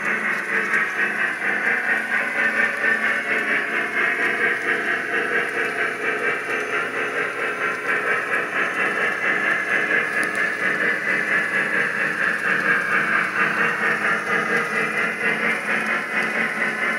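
O gauge Lionel Lionmaster Big Boy 4014 model steam locomotive running along the layout track: a steady, rushing sound that pulses quickly and evenly.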